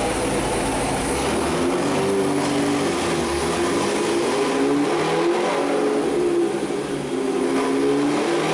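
Supercharged 6.2 L LT4 V8 of a 2015 Corvette C7 Z06, fitted with a custom-grind cam, stainless headers with high-flow cats and a Corsa axle-back exhaust, revving up and dropping back several times.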